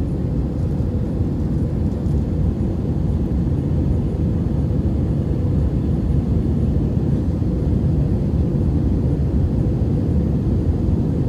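Steady low rumble of an Airbus A319 airliner in flight as heard inside the passenger cabin: engine and airflow noise, even throughout.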